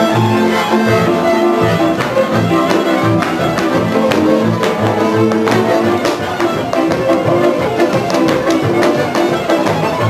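Transylvanian village folk band music with the violin leading over a steady, pulsing low string accompaniment. Sharp knocks sound through it repeatedly.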